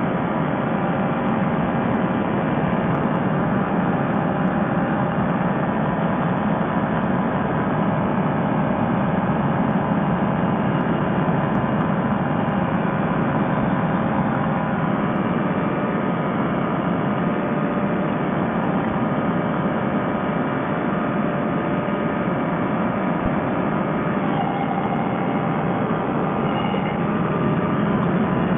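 Fresh Breeze Monster two-stroke paramotor engine and propeller running steadily, with wind, heard from the trike seat in flight.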